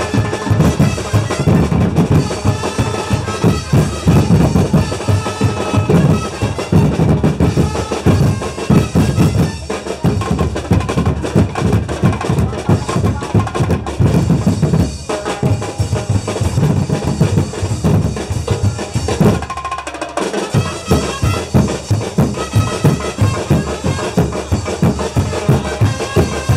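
Percussion ensemble accompanying a festival street dance: massed bass and snare drums playing a fast, driving beat, with a brief drop about twenty seconds in before the beat picks up again.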